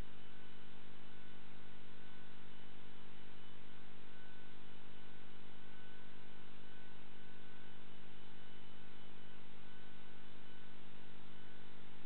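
Steady low hum made of several fixed tones, unchanging throughout, with no ball strikes or voices.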